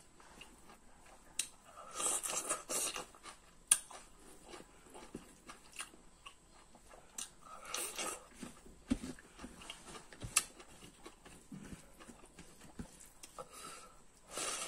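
Close-up eating sounds of a man eating rice and chicken curry by hand: wet chewing with irregular mouth clicks, loudest in short clusters about two seconds in, about eight seconds in and near the end.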